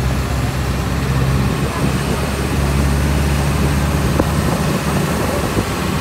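Engine of a moving vehicle running steadily, with road and wind noise.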